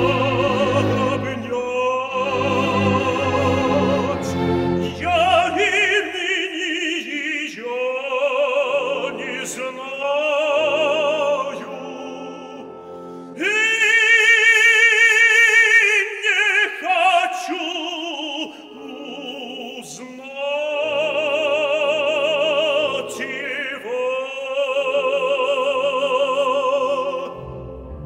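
Operatic tenor singing with wide vibrato over an orchestra, in phrases with short breaks, rising to a loud held high note about halfway through.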